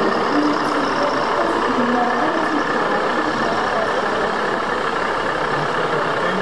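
Steady din of a crowded exhibition hall: many voices chattering, mixed with engine-like sound from the RC model trucks and bus.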